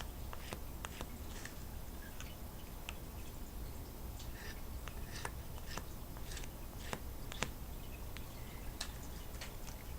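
Faint, irregular small clicks and light scraping: a scrap of cardboard spreading super glue over a Zippo lighter's metal case while the lighter is handled.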